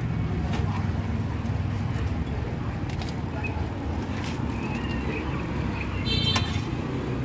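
Busy street-market ambience: a steady low rumble of vehicle engines with scattered clicks and faint voices, and a brief ringing clink about six seconds in.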